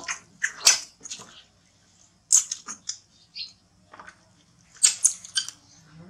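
A baby macaque being washed in a plastic basin: short splashes of water and brief high squeaks from the infant monkey, in scattered bursts with short pauses between.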